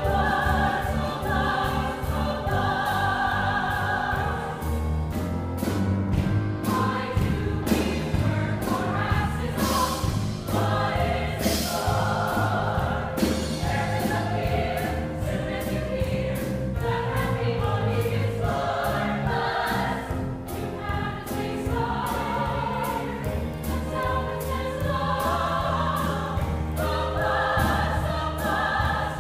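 A musical-theatre ensemble singing a show tune together, backed by a live pit band with keyboard and drums; cymbal crashes stand out through the middle.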